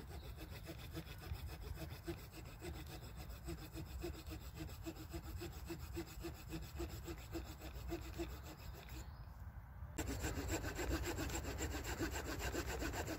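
Small saw blade of a Swiss Army knife sawing a slot into the end of a wooden stick, in quick, even back-and-forth strokes. The strokes sound louder and closer from about ten seconds in.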